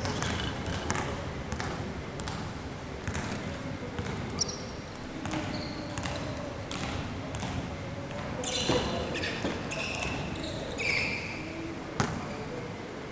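Basketballs bouncing on a court in an irregular stream of knocks, louder about four, eight and a half and twelve seconds in, with short high shoe squeaks and indistinct voices in the background.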